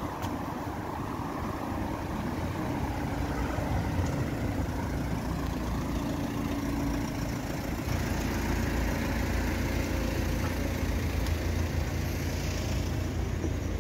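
Street traffic: car engines running and passing close by. The sound gets louder and deeper about eight seconds in.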